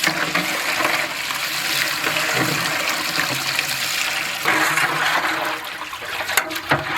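Water sloshing and splashing in a vessel as chili powder is mixed into it by hand for a fish gravy.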